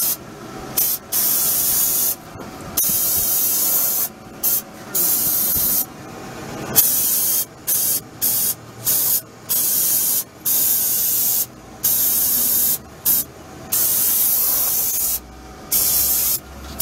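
Aerosol brake cleaner sprayed onto a car's rear drum brake assembly in more than a dozen hissing bursts, mostly a second or two long, with short breaks between them.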